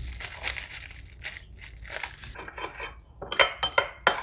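Paper spice packet crinkling as five-spice powder is shaken out of it onto a metal spoon. Near the end come several quick clinks of metal on a ceramic bowl.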